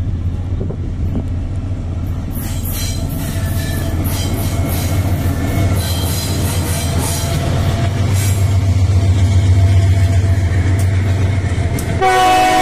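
Diesel-electric freight locomotives approaching and passing, their engine rumble building as they come close, with wheels clicking over the rails. A locomotive horn starts to sound near the end.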